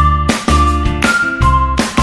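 Background music with a steady beat and a simple melody line over held chords.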